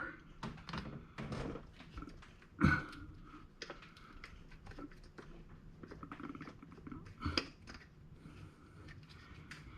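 Spark plug wire's rubber boot being twisted and worked on a distributor cap terminal: scattered small clicks and creaks, with two louder sharp knocks, one a little under a third of the way in and one about three-quarters through.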